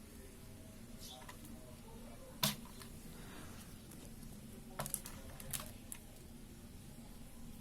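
A few short, sharp light taps or clicks: one about two and a half seconds in and a small cluster about five seconds in, over a faint steady hum.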